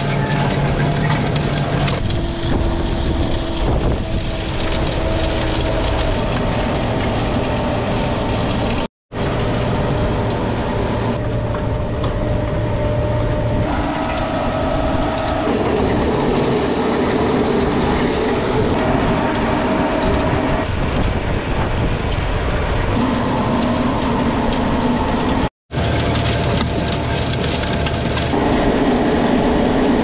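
Planter row units running through a tilled field, a steady mechanical rattle and clatter with a hum, picked up close to the machine. The sound changes abruptly several times and drops out briefly twice, about 9 and 25 seconds in.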